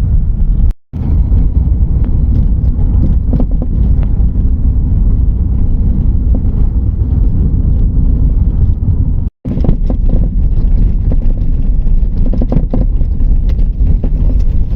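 Inside a 2012 Volkswagen Saveiro pickup on the move: a heavy low rumble from the road and wind on the microphone, with repeated short knocks and rattles. The knocking comes from a windshield that has come loose from its bonding. The sound cuts out briefly twice.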